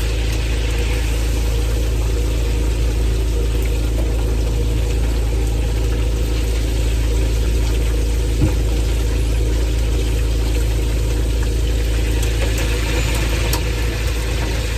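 An engine running steadily at constant speed, a low, even hum, with one brief knock about eight and a half seconds in.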